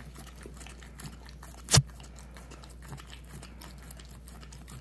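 Boxer puppy licking peanut butter off a paper plate: a run of soft, wet licking and smacking sounds, with one single louder knock nearly two seconds in.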